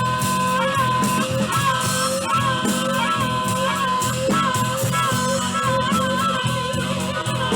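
Blues band playing: a lead line of held notes that bend in pitch, over a steady repeating bass groove.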